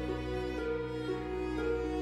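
Slow background music: a melody of long held notes that step from pitch to pitch over a steady low drone.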